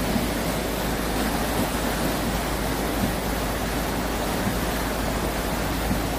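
A rain-swollen stream in flood, its muddy water rushing in a torrent after record heavy rain. It makes a steady, unbroken rushing noise.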